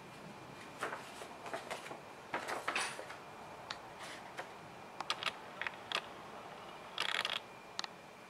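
A folded paper instruction sheet being handled and unfolded: irregular crisp crackles and rustles, with a longer crinkle about seven seconds in.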